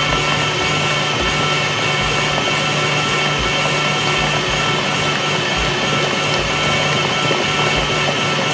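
KitchenAid stand mixer running steadily, its wire whisk beating egg-and-sugar batter in the steel bowl; a constant motor hum and whine.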